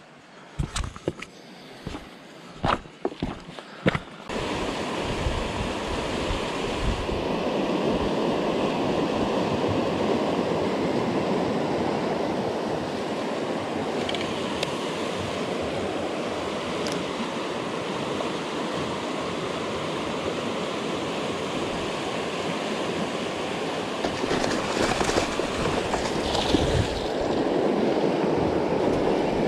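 Footsteps crunching over loose river stones for the first few seconds, then the steady rush of fast-flowing river water over rocks.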